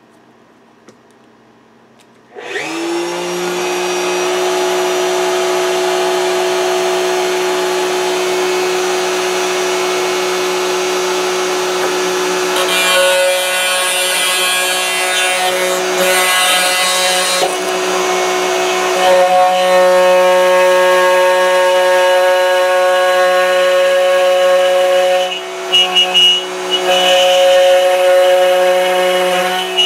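Router on a router table switched on a couple of seconds in, spinning up to a steady high whine. From about halfway the bit cuts a circular arc through thin hardboard as the sheet is swung around a pivot bolt, adding a rasping cutting noise over the motor that comes and goes.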